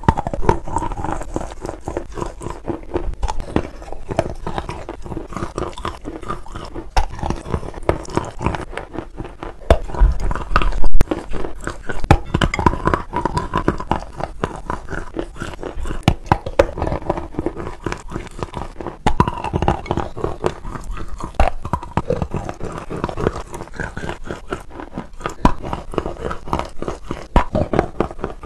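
Close-miked chewing and crunching of a chunk of chalk coated in red clay paste, a dense run of irregular crackling bites, loudest a little past ten seconds in.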